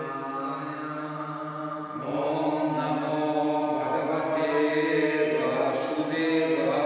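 Devotional mantra chanting with long held notes. More voices come in about two seconds in, and it gets louder and fuller.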